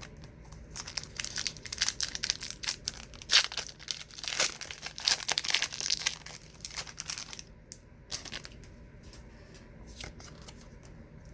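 A trading card pack's wrapper being torn open and crinkled by hand. It is a rapid crackle that is loudest in the middle and thins out to a few crinkles near the end.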